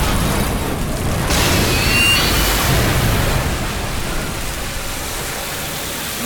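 Film sound effects of a submarine interior under depth-charge attack: a loud, steady rushing hiss of spray over a low rumble, with a brief high metallic squeal about two seconds in.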